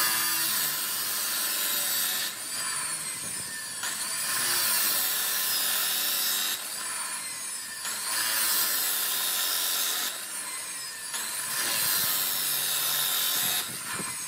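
Scraping, sawing-like noise from a tool working a surface, in repeated passes of about two seconds each with short quieter dips between them.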